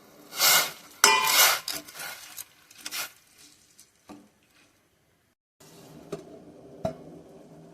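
Metal pot and utensils handled on a stove: two loud scraping clatters in the first second and a half, then smaller clinks and knocks. The sound drops out completely for about a second past the middle, then a click and a sharp knock come over faint background.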